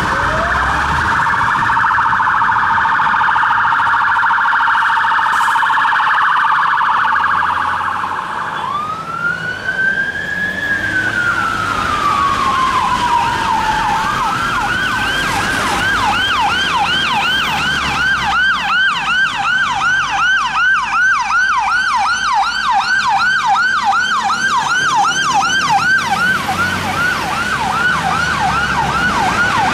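Fire engine sirens on emergency response. They go in a very rapid warble, change to one slow wail rising and falling, then switch to a steady yelp of about two and a half rising sweeps a second.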